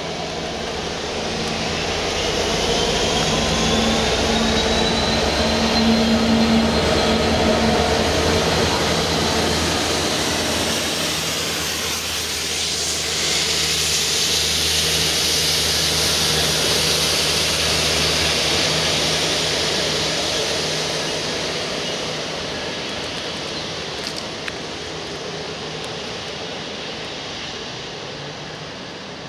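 Two Class 66 diesel-electric locomotives passing, their EMD two-stroke V12 engines running with a low steady drone under the rumble and hiss of wheels on rail. A faint rising whine comes a few seconds in. The sound swells twice, once as each engine goes by, then fades away as the train recedes.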